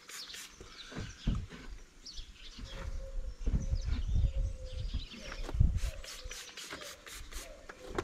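Microfiber cloth rubbing over a painted car bonnet during a panel-wipe wipe-down, with low rubbing and handling bumps, while birds chirp in the background.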